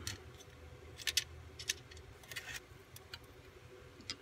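Irregular light clicks and metallic taps of hands working small nuts onto screws through thin aluminum bottle parts. Near the end a hand reaches among the hand tools on the bench.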